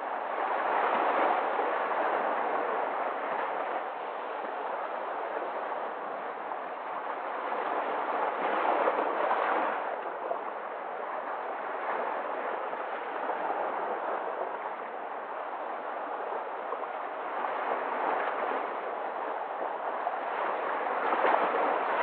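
Sea waves washing in and breaking over shoreline rocks: a continuous wash of surf that swells as each wave breaks, most strongly about a second in, around nine seconds and again near the end.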